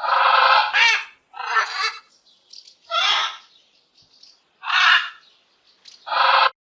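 Parrot chattering: a run of about six harsh squawking calls, each under a second long, separated by short pauses.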